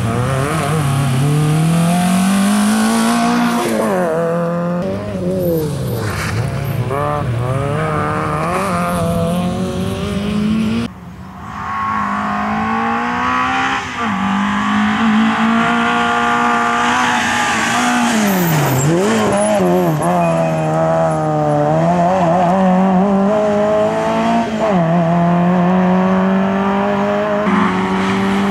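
Fiat Seicento rally car engine revving hard, its pitch climbing and dropping again and again as it accelerates, changes gear and lifts off for corners. The sound cuts off abruptly about eleven seconds in and picks up again at once.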